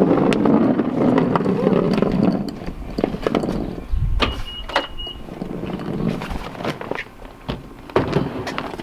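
Car trunk being unlocked and opened: a rustling noise for the first couple of seconds, then scattered clicks and a short high beep, and a clunk near the end as the trunk lid opens.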